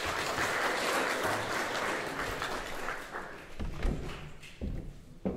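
Audience applauding, fading out after about three and a half seconds, followed by a few dull thumps.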